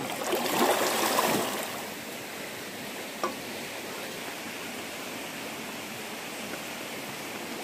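A swimmer kicking and splashing through a river pool for the first second and a half, then the steady rush of flowing river water.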